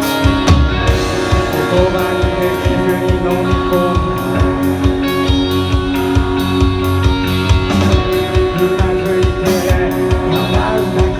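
Band music without singing: guitars over a steady drum-kit beat, an instrumental passage of a rock song.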